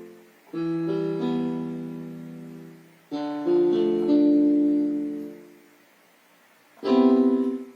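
Piano-style keyboard music: slow chords, each built up note by note, held and left to fade. A short, louder chord comes near the end.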